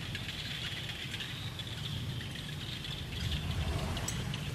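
Forest ambience: a steady high-pitched wildlife chorus over a low rumble, with a few faint ticks around three and four seconds in.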